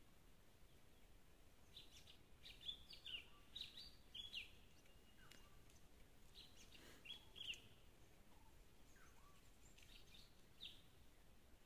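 Faint calls of wild birds: clusters of short, high chirps a few times over a quiet hiss.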